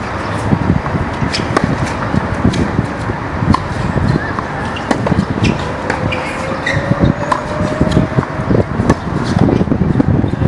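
Tennis balls being struck by rackets and bouncing on a hard court: sharp pops at irregular intervals over a steady din of voices and noise.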